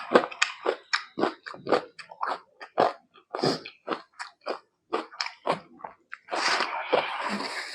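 A person chewing a mouthful of rice and mutton curry close to the microphone: wet, smacking chews about two to three a second. About six seconds in, a longer continuous noisy sound of about a second and a half takes over.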